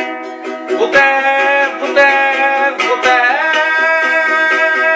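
A man singing while strumming a ukulele in a quick, even rhythm; his voice slides up to a long held note a little past the halfway point.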